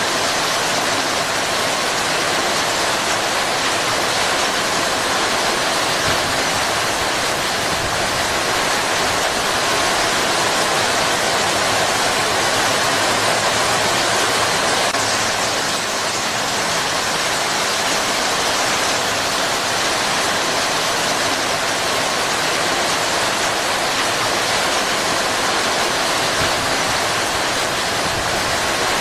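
Heavy rain pouring steadily onto palm foliage, an even, unbroken hiss.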